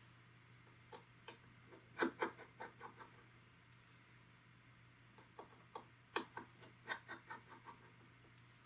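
Light clicks and taps of a small screwdriver and tiny screws as the screws holding the iPod Touch's internal metal plate are undone and set down, in two short clusters.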